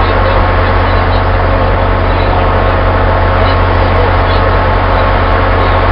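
Commuter-rail diesel locomotive idling at a standstill: a loud, steady engine drone with a constant low hum.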